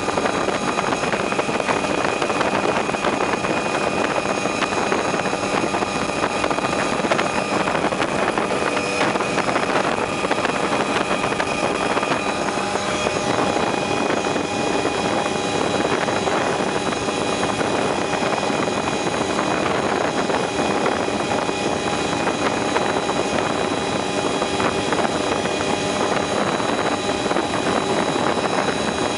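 Helicopter in steady flight heard from inside the cabin: the engine and rotor run at a constant pitch, a broad rushing noise with a few steady high whining tones over it.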